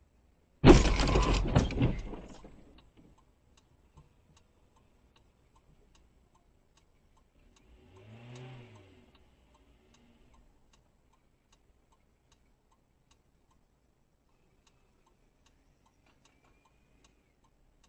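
A car crashing into the parked dashcam car: one loud sudden impact with crunching that dies away over about two seconds. Faint regular ticking, about two a second, runs on after it.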